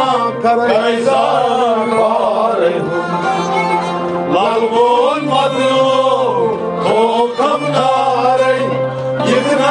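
A man singing a Kashmiri Sufi kalam in a slow, ornamented melody that bends up and down, over a steady held drone.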